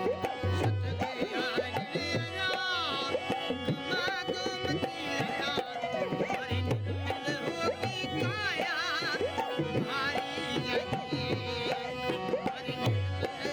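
Rajasthani folk music played live: an ornamented sung melody with wavering, sliding notes over steady held tones and a driving hand-drum rhythm with deep repeated beats.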